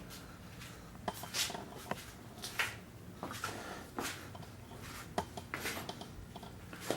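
Scattered light clicks and knocks, a dozen or so at irregular intervals, over a faint low hum.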